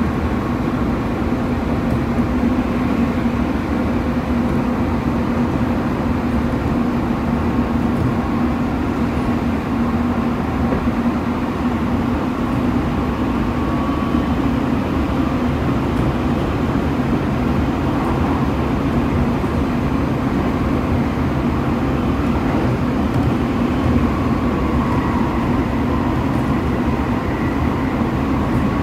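Chiba New Town Railway 9100-series electric train with Toyo Denki GTO-VVVF traction, heard from inside the passenger car running at a steady speed. The wheels rumble on the rails under a steady hum that holds one pitch.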